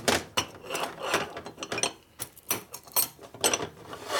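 Steel connecting rods and caged roller bearings from a Harley-Davidson Twin Cam crank clicking and clinking against each other and the steel bench as they are handled and fitted together. The clicks come in a quick, irregular string, several a second.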